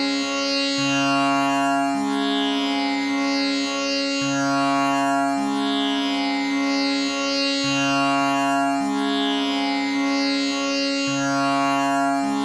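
Tanpura tuned to C sharp, its strings plucked in turn in a steady cycle that repeats about every three and a half seconds. Together they sustain a continuous drone rich in overtones.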